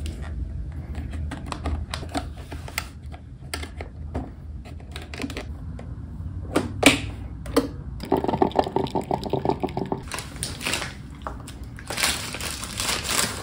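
Plastic clicks and knocks from loading a single-serve coffee maker and pressing its lid shut, a run of small sharp taps over a low steady hum. Near the end, paper rustling.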